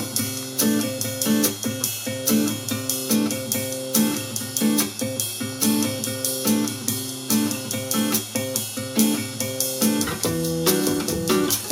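A calm, guitar-led music track playing through a JVC RV-NB70 'Kaboom' boombox's speakers, with its bass set to the minimum: plucked and strummed guitar over a steady beat, with little deep bass.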